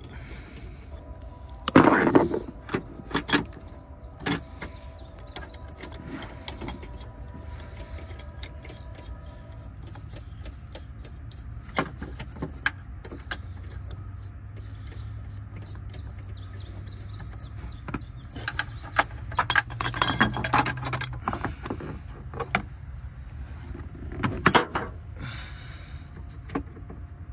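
Hand tools working on a car battery hold-down: scattered metallic clicks and clinks of a wrench on the 10 mm nuts and the bracket being handled. Louder bursts of clatter come about two seconds in, around twenty seconds, and again a few seconds later.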